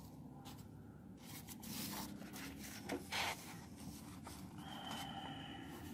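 A sheet of paper being handled and laid flat over a book page: soft rustles and scrapes, the loudest about three seconds in.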